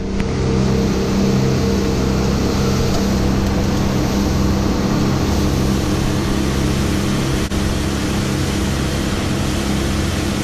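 Sportfishing boat's engine running steadily at speed, a constant drone with a rush of wind and water from the boat's motion.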